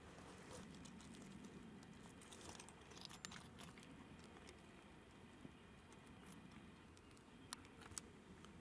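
Near silence: faint outdoor room tone with a few soft clicks and rustles, two sharper ticks near the end.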